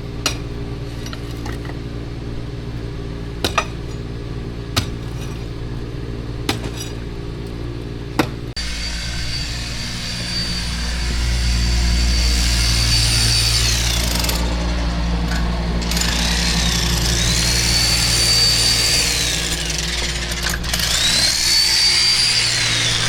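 A steady low engine hum with a few sharp knocks. Then, about eight seconds in, a handheld power tool takes over: a high whine rises, holds and falls away three times as it is run up and let down.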